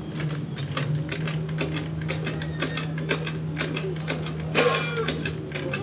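Small scooter engine, on a Honda Vario stalled by floodwater, running with a steady hum and a rapid, uneven ticking clatter.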